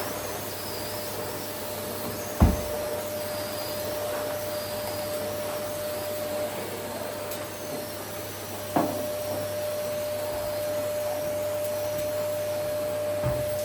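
Vacuum cleaner running steadily, a constant whine over an even rushing noise. Two sharp thumps cut through it, about two and a half seconds in and about nine seconds in, with a lighter knock near the end.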